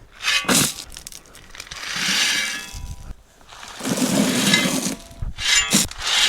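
Gravel being shovelled into a drain well: sharp crunches of a shovel biting into rock, then longer rattling swells of stones pouring in, twice.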